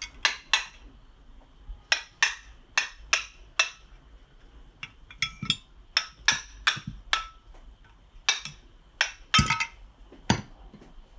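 About twenty sharp metallic taps and clinks at uneven intervals, each with a short ring. This is a hammer tapping on the crankcase of a Piaggio Si moped engine to work the stuck case halves apart.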